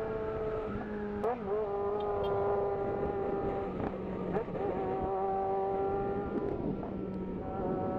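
Yamaha XJ6's inline-four engine running at a steady, fairly high pitch on the move, dipping briefly in pitch about four times and then settling again.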